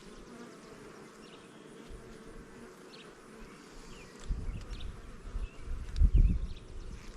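Honeybees buzzing steadily around an open hive during an inspection; the colony is agitated and unusually defensive. Low rumbles on the microphone about four seconds in and, loudest, about six seconds in.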